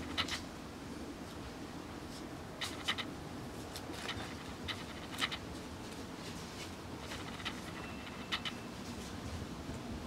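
Rottweiler puppies' paws scratching and rustling on dry leaves and straw, in short scattered crackles every second or so.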